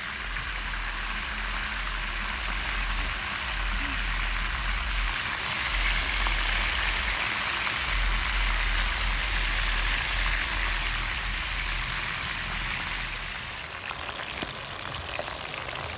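Whole Caribbean spiny lobsters deep-frying in a pot of hot vegetable oil: a steady, dense sizzle, loudest in the middle and easing off near the end. A low rumble comes and goes underneath.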